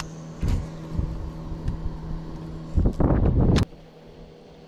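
Electric trolling motor on a bass boat humming steadily at one pitch, cutting off abruptly about three and a half seconds in. A brief, louder rumble comes just before it stops.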